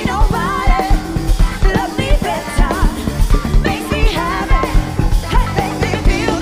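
Live rock band playing: a wavering sung vocal line over drum kit, bass guitar and electric guitar, with a steady drum beat.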